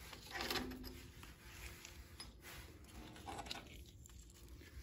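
Faint clinking of loose metal bolts being picked up and handled against the tractor's metal housing.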